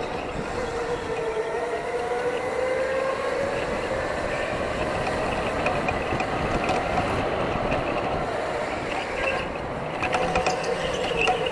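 Electric go-kart motor whining, heard from on board the kart. The pitch falls as it slows into corners, at the start and again near the end, and rises along the straight in between.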